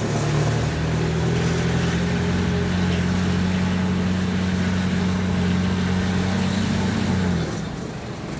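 Mitsubishi L300 van's engine running at steady revs while driving, heard from inside the cab; the engine note drops off about a second before the end.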